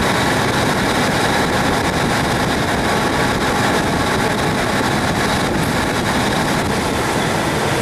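Steady running noise of a train in motion, heard from on board.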